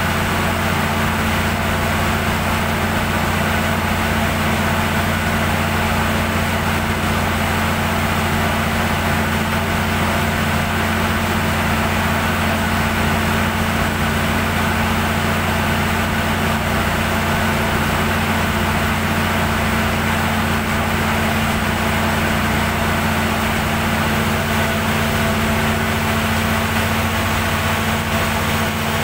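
Perkins diesel generator set running steadily at constant speed, with a loud, even low hum.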